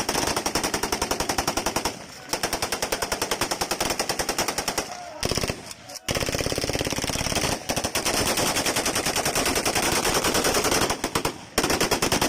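Automatic rifle fire in long rapid bursts, many shots a second, with brief pauses about 2, 5 and 11 seconds in. This is gunfire shot into the air in tribute at a mourning gathering.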